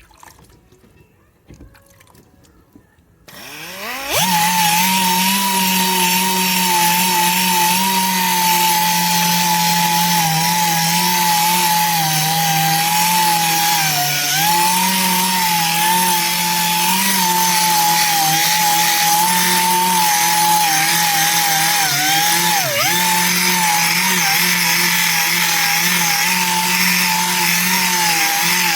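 A power sander with a wet 1000-grit pad starts up about four seconds in and runs steadily with a whine and a hiss, sanding the curb rash out of an aluminium wheel. Its pitch dips briefly a couple of times.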